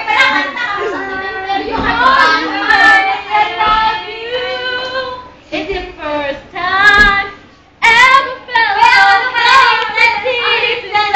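A girl singing unaccompanied, in sung phrases broken by short pauses.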